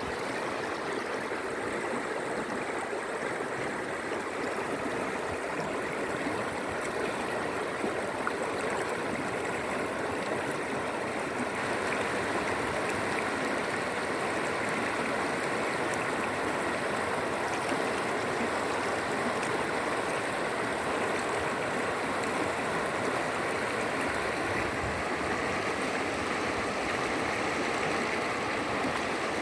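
Shallow river water flowing and babbling over a bed of stones, a steady gurgling rush that grows slightly louder about twelve seconds in.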